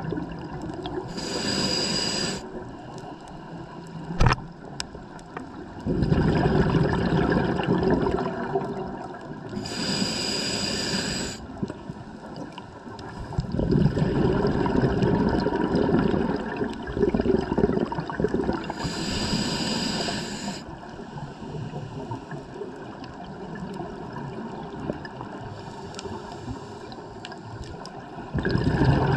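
A scuba diver breathing through a regulator underwater. There is a short hissing inhale three times, about every nine seconds, and between them a longer, louder rush of exhaled bubbles. One sharp click sounds about four seconds in.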